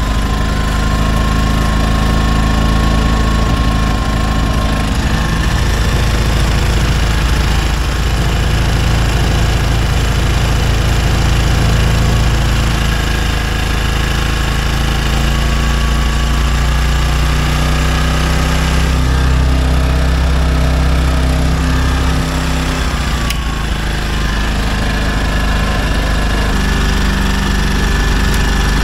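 Denyo GE-550 portable generator's small Robin engine running steadily under a light load. Its speed shifts a few times past the middle, with a drop in pitch a little later, as the governor is adjusted to set the engine speed for 50 or 60 Hz output.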